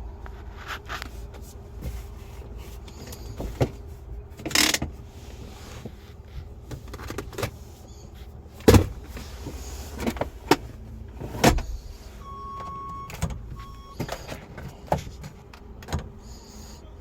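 Scattered clicks and knocks of a 2015 Mini Cooper Countryman being handled, its doors and controls worked, with two sharp knocks standing out in the middle. A short electronic beep sounds about twelve seconds in and once more, briefly, a second later.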